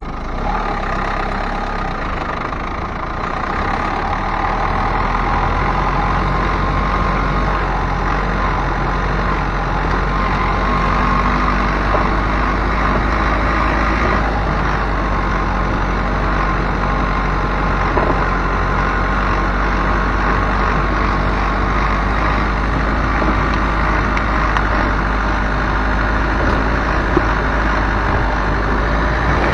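Car running steadily: a continuous engine hum over a strong low rumble, a little louder after the first few seconds.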